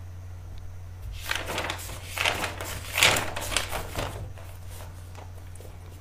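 Rustling, crinkling handling noise in three or four bursts between about one and four seconds in, over a steady low hum.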